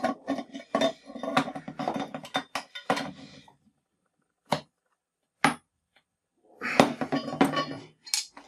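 Adjustable wrench and pliers clinking and scraping on a brass compression tee as its nut is tightened onto copper pipe, a dense clatter that stops after about three and a half seconds. Two separate clicks follow, then more metal clatter near the end as the tools are moved off the fitting.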